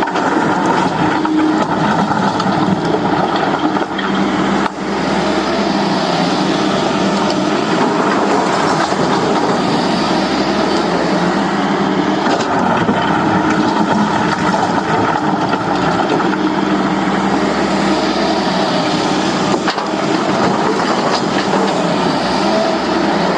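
Heavy diesel engine of an excavator working in a stone quarry, running steadily under load, with a few sharp knocks scattered through it.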